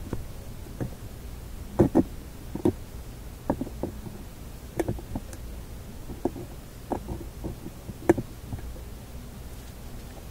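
Scattered light clicks and knocks, about a dozen in all, the loudest about two seconds in and again near eight seconds, from a small radio coil with an alligator clip and meter test lead attached being handled and turned in the fingers. A steady low hum runs underneath.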